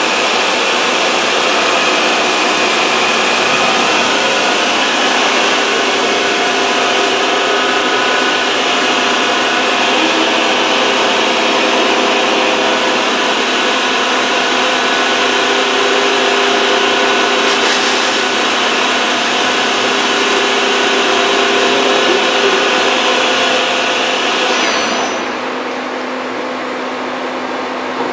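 Large gantry machine's spindle driving a cutter across a metal plate under flowing coolant: a steady, loud machining noise with several steady tones over a hiss. About three seconds before the end the hiss and level drop away.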